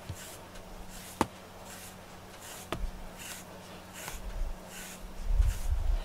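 Pet grooming brush stroked repeatedly through a cat's fur, a soft swishing rustle about every 0.7 seconds. Two sharp clicks come about one and three seconds in, and low thumps near the end.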